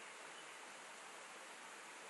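Faint, steady rush of shallow stream water flowing over stones, with no distinct splashes or changes.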